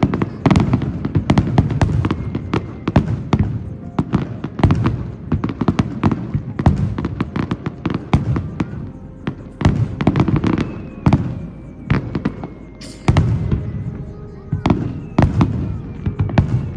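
Aerial fireworks shells bursting one after another, a dense run of sharp bangs and crackles over repeated low booms.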